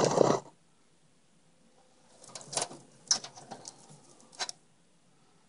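A short hissy burst right at the start, then a cluster of sharp light clicks and rustling about two to four and a half seconds in, from small plastic connectors and wires being handled.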